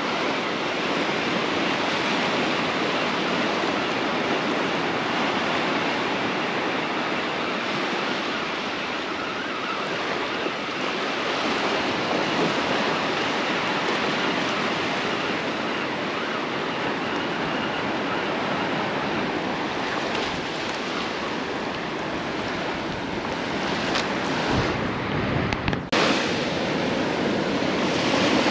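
Ocean surf breaking and washing up the beach in a steady rush, with wind on the microphone and a few low bumps near the end.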